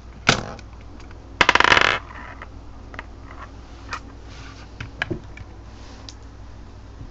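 Sharp plastic clicks from a B-Daman marble-shooting toy, with a short rapid clatter of marbles about a second and a half in. A few lighter clicks follow.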